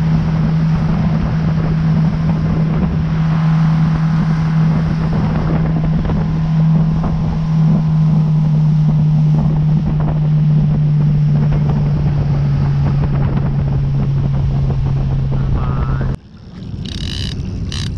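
Outboard motor on an aluminium fishing boat running steadily at speed, a constant drone under the rush of wake water and wind on the microphone. The drone dips slightly in pitch about halfway and cuts off suddenly about sixteen seconds in.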